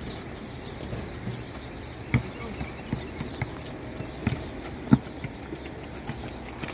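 Basketball bouncing on an outdoor concrete court with players' sneakers running, heard as a few separate thuds, the loudest about five seconds in, over light scuffing of footsteps.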